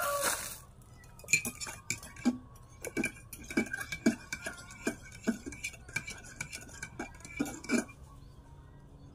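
A rooster's crow tails off at the very start. Then come about a dozen irregular sharp clicks and crackles as hands pick small mushrooms from dry leaf litter and sandy forest soil.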